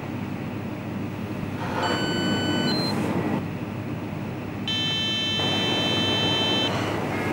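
Card payment terminal beeping as a card is tapped on it. A short electronic beep comes about two seconds in and steps up in pitch at its end. A longer tone of about two seconds follows near the middle. A steady background hum runs underneath.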